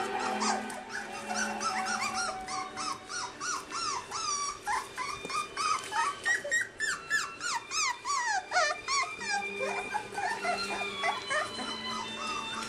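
A litter of young English Springer Spaniel puppies whining and yelping, many short high rising-and-falling cries overlapping, busiest in the middle.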